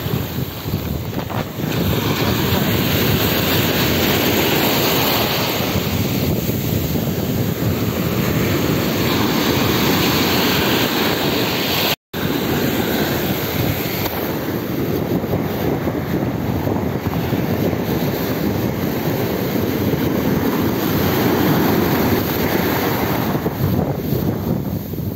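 Surf washing in over the shallows at close range, a steady rush that swells and eases as each wave comes in, with wind buffeting the microphone. The sound cuts out for an instant about halfway through.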